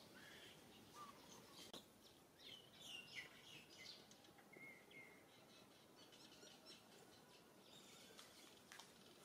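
Very quiet outdoor background with a few faint, short high-pitched chirps scattered through it, bunched together near the middle.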